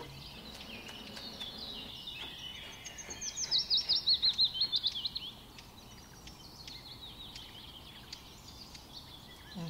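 Songbird singing: scattered high chirps throughout, with a fast run of about a dozen quick falling notes about three to five seconds in, the loudest part.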